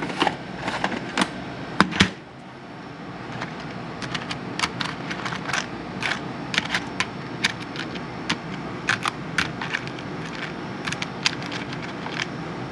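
Irregular light clicks and clinks of steel screwdrivers being handled and their magnetic tips tried against small metal pieces, the two loudest in the first two seconds, over a steady low hum.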